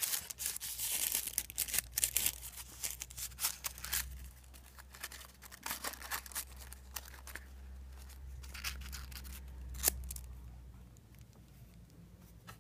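Plastic packaging being handled and torn: a run of quick crinkles and rips, busiest in the first few seconds and sparser after, with a single sharp click near ten seconds.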